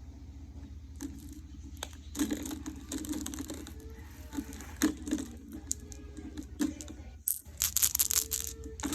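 Glass marbles clicking and clattering against one another as they are handled and sorted by colour: scattered sharp clicks, with a quick flurry near the end, over a steady low hum.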